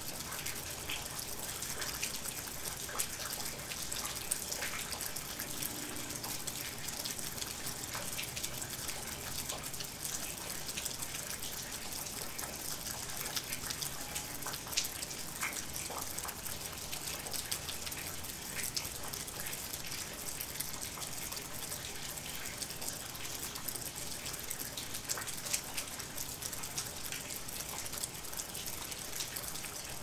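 Steady rain: a continuous hiss with many individual drops ticking through it.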